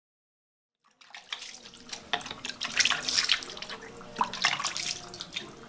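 Hands being washed with water over a plastic water dipper: irregular splashing and dripping that starts about a second in.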